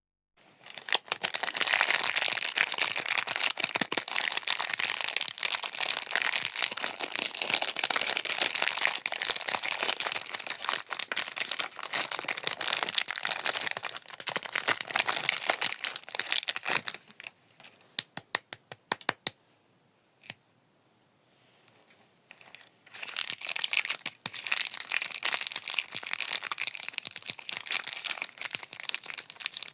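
Plastic snack wrappers crinkling and tearing as they are opened by hand. The crackling stops a little past the middle, leaving a few sharp clicks and a short quiet spell, then starts again.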